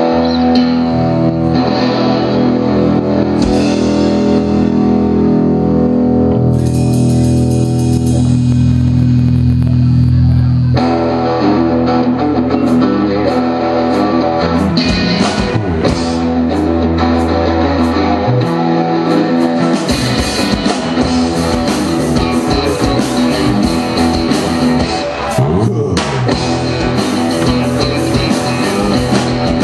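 Live rock band playing electric guitars, bass guitar and drum kit. Held chords ring for about the first ten seconds, then the band breaks into a steady driving beat, with cymbals filling out the sound about twenty seconds in.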